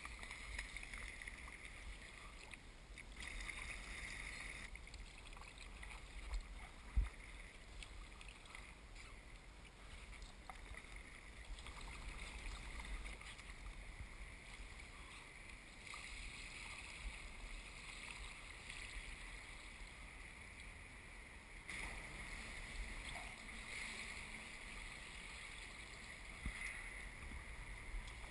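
Kayak paddle dipping and dripping in calm water, faint splashes swelling and fading as the strokes go on, over a low rumble on the camera mic. One sharp knock about seven seconds in.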